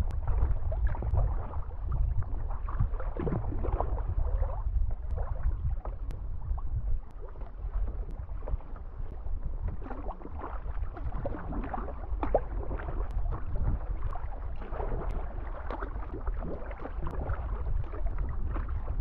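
Water splashing and lapping around a sea kayak under paddle, with irregular paddle splashes, over a steady low rumble of wind on the microphone.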